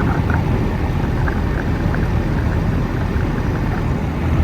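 American Standard outdoor air-conditioner condensing unit running, with its replaced condenser fan motor and blades turning: a loud, steady low hum with a rush of air.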